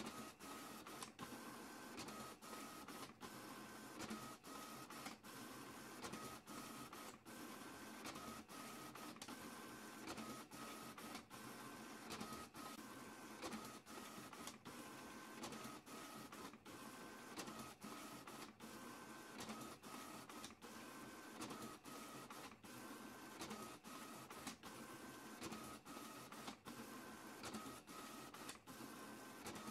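Printer printing continuously: a steady mechanical whir broken by many brief pauses, with a high whine that comes and goes every second or two.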